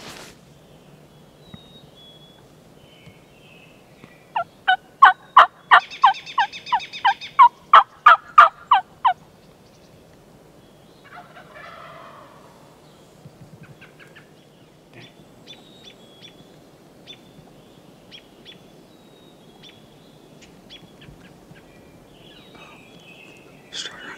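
A wild turkey tom gobbling close by: a loud run of quick, rattling notes lasting about five seconds. Faint scattered ticks follow.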